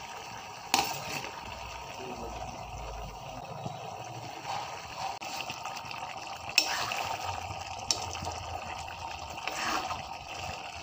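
Pork curry sizzling in a metal pan while chopped tomatoes are tipped in and the pieces are stirred with a metal spoon, with a few sharp knocks of the spoon against the pan.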